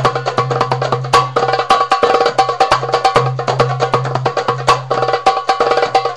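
Darbuka (doumbek) solo played with both hands: fast, closely packed finger strokes and rolls, with deeper bass strokes ringing low in stretches.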